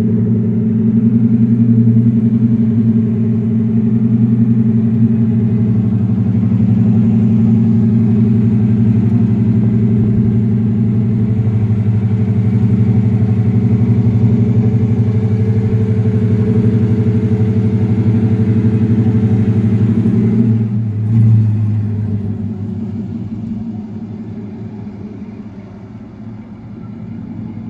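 GMC Sierra pickup's engine pulling steadily at low revs in four-wheel-drive low range and first gear, with the wheels turning slowly to crawl the truck out of soft sand. About 21 seconds in there is a brief swell, then the engine eases off and grows quieter as the truck comes free.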